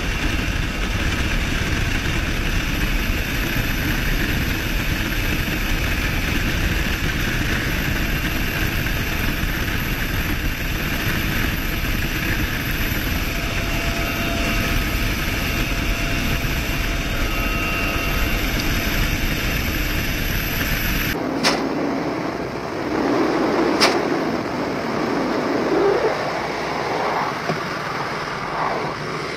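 Helicopter in flight heard from an open door-gun position: a steady rush of rotor and wind noise. About 21 seconds in it cuts abruptly to a thinner, quieter sound with two sharp clicks.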